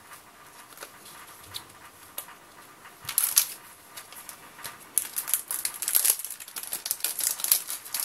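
Small paper first-aid packets (alcohol-wipe sachets) crinkling and rustling as they are handled. Soft scattered ticks at first, a brief rustle about three seconds in, then denser crinkling through the second half.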